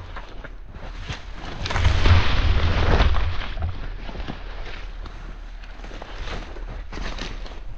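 Footsteps through grass and brush, with rustling and low rumbling right against the microphone, loudest for a second or two about two seconds in.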